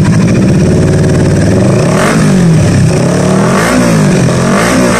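Kawasaki Ninja 650's parallel-twin engine running through an MIVV muffler with a cat delete and resonator, its silencer insert removed. It idles, then revs in about three quick throttle blips, each rising and falling in pitch.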